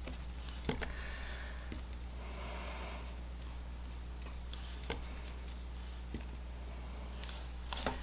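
Soft swish of a water painter brush stroking ink onto cardstock, with a few light clicks and taps of the brush and hands on the craft table, over a steady low electrical hum.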